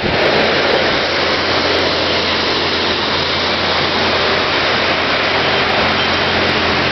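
An engine running steadily: a constant low hum under a loud, even rushing noise.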